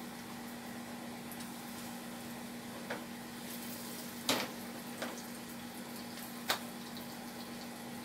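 Oil sizzling steadily as rice-flour-coated potato patties shallow-fry in a nonstick frying pan, with a few short knocks from the pan being handled, the loudest a little past the middle.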